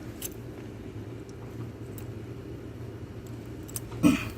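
Steady low rumble with a faint hum, a few light clicks and one louder knock near the end, as a ratchet and socket strain at a seized track-bar castle nut.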